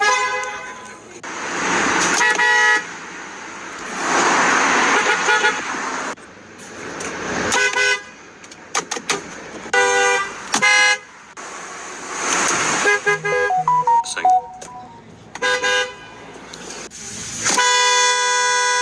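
Car horns honking: a string of separate toots and blasts of different pitches, some short and some held, ending with a long steady blast. Stretches of loud hiss-like noise come between the honks.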